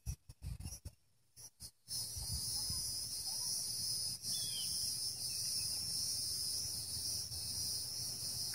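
Steady, high-pitched insect chorus of crickets or similar insects over a low rumble, coming in about two seconds in; before that the sound is choppy, cutting in and out.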